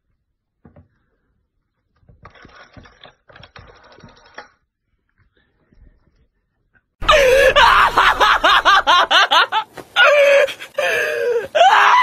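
Black-and-tan Shiba Inu screaming, a loud, high, wavering shriek that starts suddenly about seven seconds in and keeps going with short breaks. The dog is protesting being held down for examination. Before it starts there are only a few faint clicks.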